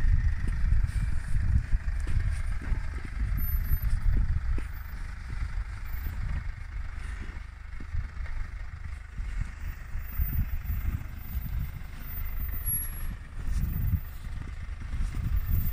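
Mercedes GLC SUV crawling slowly over rutted snow, its engine at low revs: a low, uneven rumble with a steady higher hiss above it.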